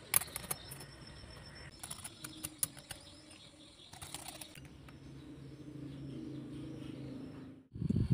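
Craft knife scraping and trimming the edges of a small clear plastic part: faint scratches and scattered sharp little ticks. A faint steady hum joins in the second half.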